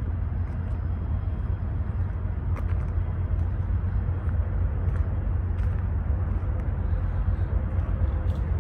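Diesel freight locomotives running with a steady, even low rumble.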